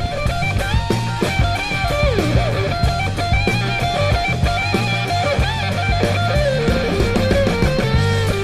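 Background rock music: a lead electric guitar playing a bending melody over bass and drums with a steady beat.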